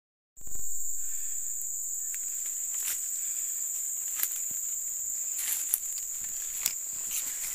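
A steady high-pitched chorus of forest insects starts about half a second in. Scattered crackles of footsteps in dry leaf litter are heard over it.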